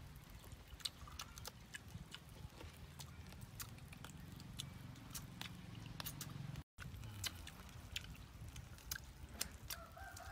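People chewing grilled duck by hand, with scattered wet mouth clicks and lip smacks over a low background rumble. The sound drops out for an instant about two-thirds of the way in.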